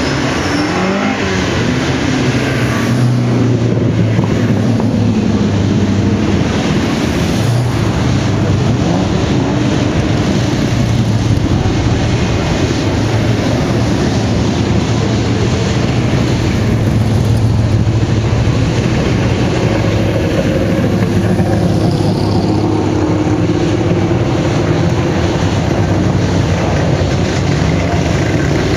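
Engines of a procession of classic sports and racing cars rolling past at low speed, one after another, a loud, steady rumble.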